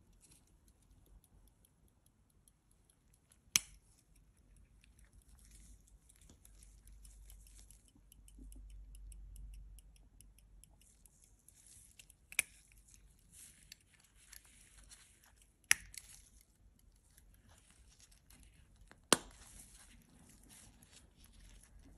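Silver-cased verge fusee pocket watch (Pierre Michaud, Paris, c. 1760) being handled: its movement ticks faintly and rapidly under glove rustle. Four sharp metallic clicks, spread seconds apart and the loudest sounds, come as the case and hinged movement are snapped open and shut.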